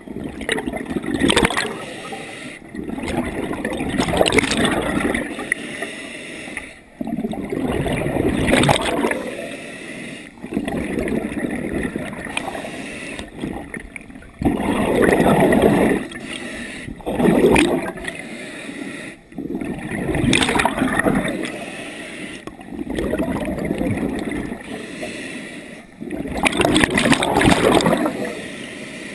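Scuba diver breathing through a regulator underwater: exhaled bubbles gurgle in loud surges every few seconds, with quieter inhalations between them.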